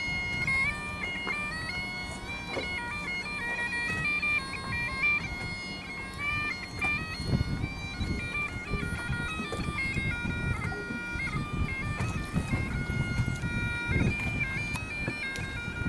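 Bagpipes playing a melody over a steady drone.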